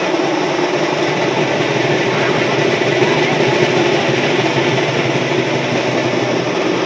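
Loud, steady din of a large, densely packed crowd of men, many voices merging into one continuous roar.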